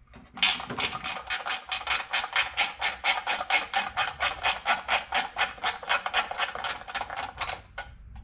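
A fast, even run of sharp clicks, about five or six a second, that starts about half a second in and stops near the end.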